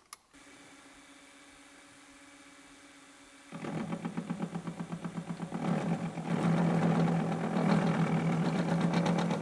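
Milling machine spindle running with a faint steady hum, then about three and a half seconds in the cutter bites into the copper blank with a rapid, rhythmic cutting chatter that grows louder and holds through the end.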